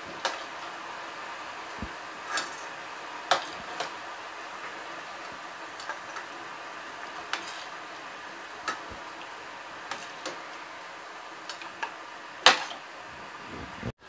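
Metal ladle clinking against a stainless-steel bowl and cooking pot as curry is served, with irregular sharp clinks over a steady background noise. The loudest clink comes near the end.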